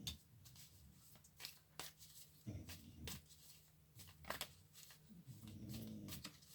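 Tarot cards being handled: scattered soft taps and rustles of the cards.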